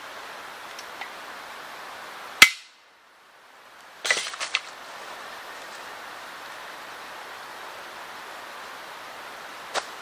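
One single sharp knock about two seconds in, over the steady rushing of a stream. After it the background drops away for a moment, then comes a quick cluster of clicks and rustling in leaf litter, and one more click near the end.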